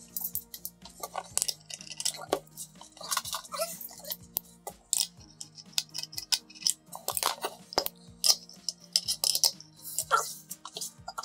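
Irregular clicks, clinks and knocks of metal scooter parts being handled as the electric scooter's front fork and suspension are fitted back onto the frame.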